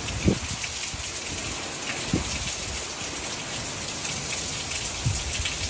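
Hurricane wind and rain rushing steadily, with a few low thumps of gusts hitting the microphone: about a third of a second in, around two seconds, and near the end.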